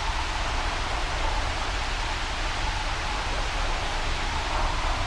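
Steady rushing wind-and-rain storm ambience with a low rumble beneath it and no thunderclaps.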